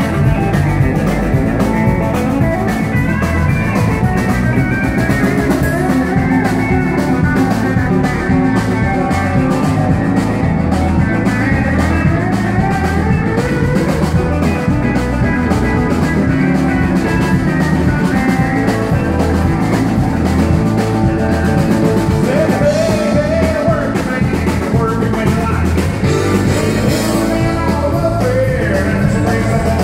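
Live country-rock band playing amplified through a PA: electric guitar, pedal steel guitar, drum kit and keyboard over a steady beat.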